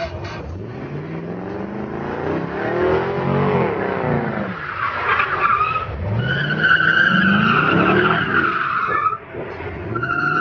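Chevrolet C5 Corvette's V8 revving hard, its pitch rising and falling twice, as the car slides sideways. Loud tyre squeal sets in about six seconds in, breaks off briefly, then comes back near the end.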